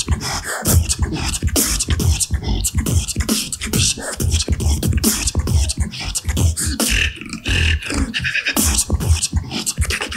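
Beatboxer performing a battle round: a fast, dense rhythm of heavy bass kicks and sharp snare and hi-hat clicks made with the mouth.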